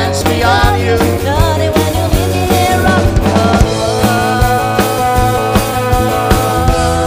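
Live country band playing with a steady drum beat: a woman singing lead over electric and acoustic guitars and electric bass. A long note is held through the last few seconds.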